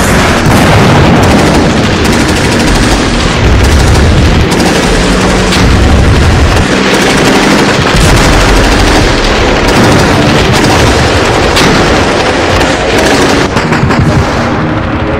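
Battle sounds: dense, continuous gunfire with explosions booming underneath, loud throughout.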